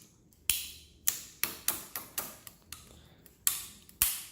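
E-bike handlebar brake lever being squeezed and released repeatedly to test it, giving a series of sharp clicks, roughly two a second at uneven spacing.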